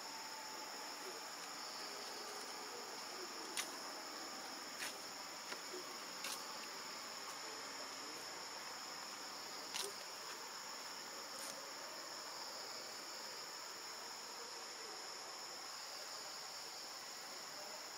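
Steady high-pitched insect chorus, crickets or cicadas, droning without a break, with several short sharp clicks scattered through the first half.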